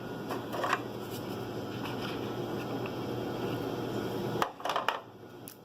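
Rustling from packaging being handled. It stops about four and a half seconds in with a few sharp clicks as the Ring Video Doorbell Pro is worked out of its box insert.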